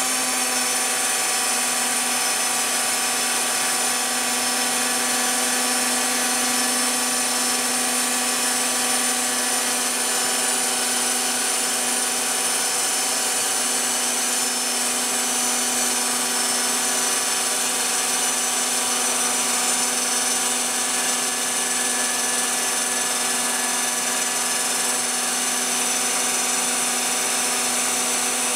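Phlatprinter CNC router cutting a fibreglass sheet: the spindle runs at a steady whine made of several constant tones, with no change in pitch or loudness.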